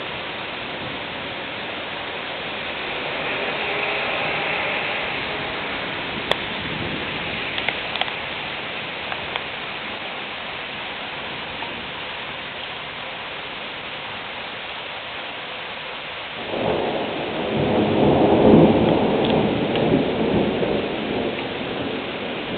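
Steady rain falling, with a few sharp ticks of drops, then a thunderclap about three-quarters of the way through that builds quickly into a loud rolling rumble, loudest a couple of seconds after it starts and dying away slowly.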